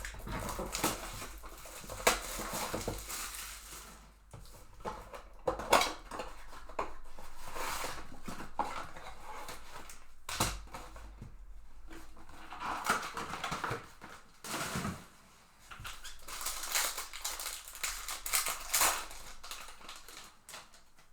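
A mega box of baseball cards being opened: crinkling plastic wrapping and cardboard, with irregular rustling and tearing as the packs come out and are ripped open.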